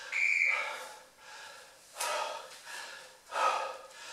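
A man breathing hard, out of breath after high-intensity interval exercise: three loud breaths out at the start, about two seconds in and near the end, with softer breaths between. The first has a short whistle in it.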